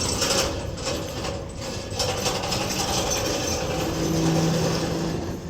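A train running on the rails, a continuous rumble and clatter of wheels, with a steady motor hum coming in about three and a half seconds in.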